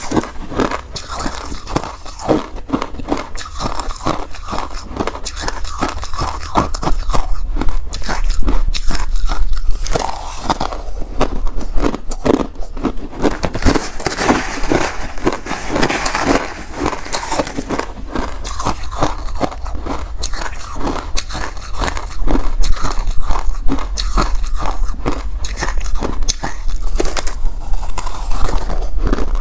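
Close-miked biting and chewing of refrozen crushed ice: dense, rapid crunching throughout.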